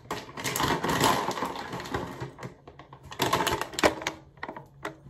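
Scraping and rustling for about two seconds, then a run of sharp clicks and taps: small objects being handled close to the microphone.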